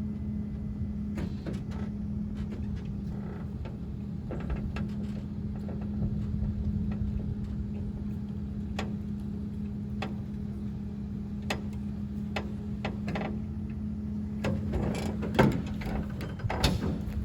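A motor running with a steady hum, with scattered clanks and knocks throughout, a few louder knocks near the end.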